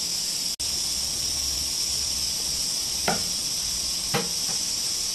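Steady hiss of steam from a flameless self-heating cooker, its heating pack reacting with water under a pot of ramen at the boil. Two short pops come about three and four seconds in, and the sound drops out for an instant just after the start.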